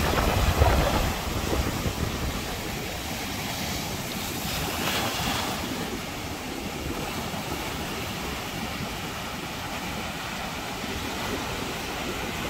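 Ocean surf breaking and washing up a sandy beach, with wind rumbling on the microphone, strongest in the first second.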